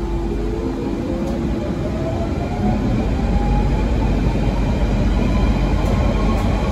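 London Underground Central line train (1992 stock) heard from inside the carriage as it pulls away and speeds up. The traction motors whine, rising steadily in pitch, over a low rumble from the running gear.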